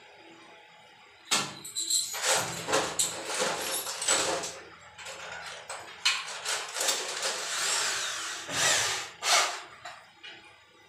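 Corded power drill run in a series of short bursts, starting about a second in and stopping shortly before the end.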